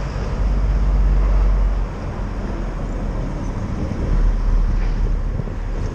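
Outdoor background rumble, heaviest in the deep low end and wavering in strength, easing off about two seconds in and swelling again near the four-second mark.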